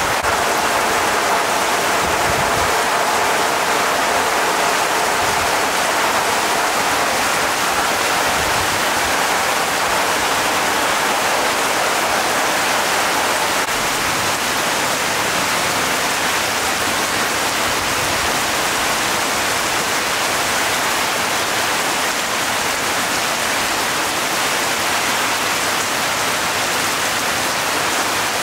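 Steady sizzling from a pan of chilli beef cooking in its thickened sauce.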